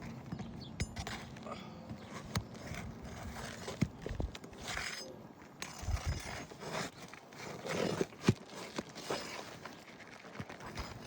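Irregular taps, knocks and short scrapes of roofing work on asphalt shingles, a damaged shingle being removed and replaced by hand, the sharpest knocks about four, six and eight seconds in.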